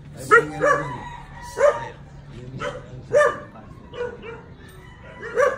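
A dog barking repeatedly: a string of short, sharp barks about a second apart.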